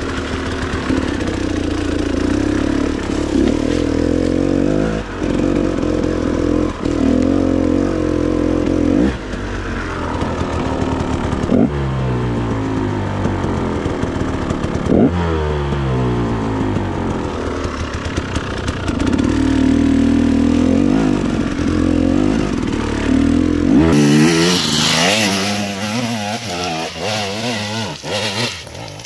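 Two-stroke KTM enduro dirt bike engine being ridden, its revs rising and falling again and again through the throttle and gear changes. About four seconds before the end the sound changes to a harsher, hissier engine held at high revs.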